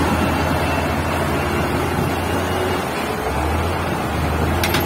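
Truck engine running steadily as the truck moves through deep mud, a low drone with noise over it and a short click near the end.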